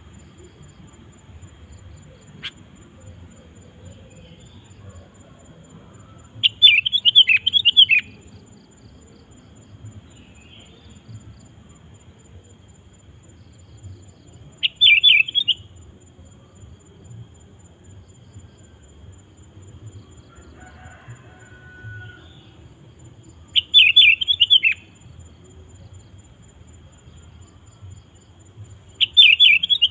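Sooty-headed bulbul (kutilang) singing: four short, quick warbling phrases, each about a second long and several seconds apart.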